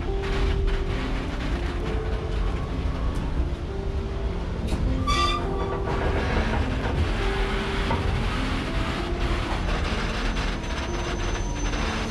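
Passenger train carriages rolling over a curved steel bridge: a steady rumble with the clatter of wheels on rails, heard through an open carriage window. A brief high squeal comes about five seconds in.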